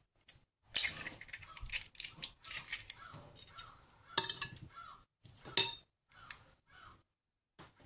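An egg cracked by hand over a glass bowl, then a metal spoon clinking and scraping against the glass as it works the mixture, with a few sharp knocks, the loudest about four and five and a half seconds in.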